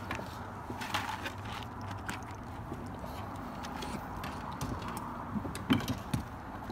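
Scattered light knocks and taps on an aluminum fishing boat as a caught crappie and tackle are handled, with a louder knock about six seconds in.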